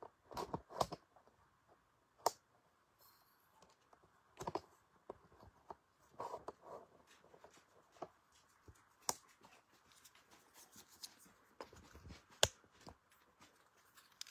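Faint handling noises: irregular rustles, clicks and light knocks, a couple of them sharper than the rest, over a faint steady background.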